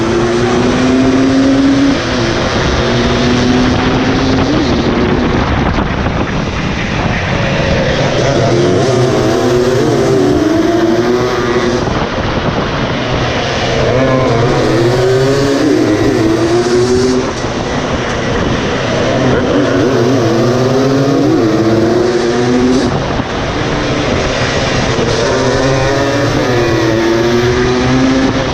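Racing motorcycle engines revving hard, heard close up from onboard one bike in a pack. The pitch climbs and drops in repeated sweeps as the bikes accelerate and shift, with several engines overlapping.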